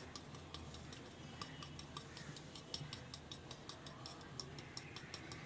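Black pepper shaken from a plastic shaker onto bread: faint, quick, dry ticks, several a second and unevenly spaced.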